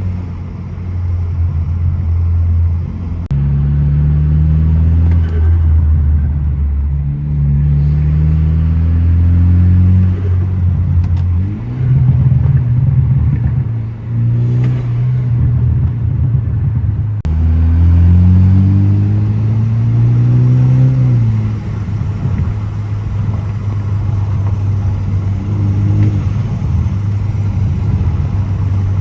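BMW F30 328i's turbocharged four-cylinder engine accelerating hard through the gears: the engine note climbs in pitch and falls back at each upshift several times over, then settles into a steadier cruise for the last several seconds.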